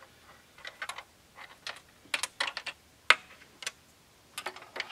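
Handling of a red and black power lead with a plastic inline fuse holder: light plastic clicks and taps in irregular clusters, some quick runs of several clicks, with the sharpest single click a little after three seconds in.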